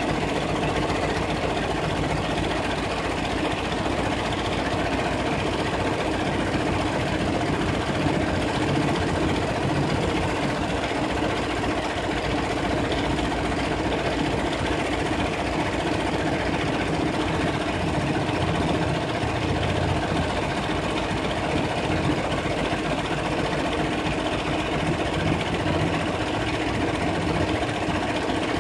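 Brother multi-needle embroidery machine stitching a logo into fabric held in a hoop: the sewing head runs with a steady, fast stitching chatter.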